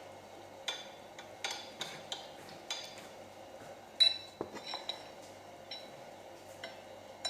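Spoon clinking and scraping against dishware while eating: a string of light clicks, with one sharper, ringing clink about four seconds in.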